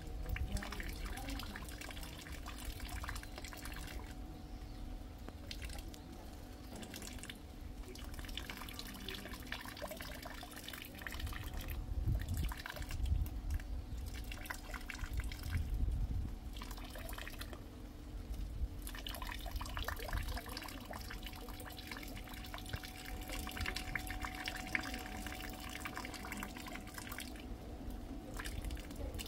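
Rainwater dripping and splashing in irregular drops, thinning out now and then. A low rumble swells in the middle, and a faint steady hum runs underneath.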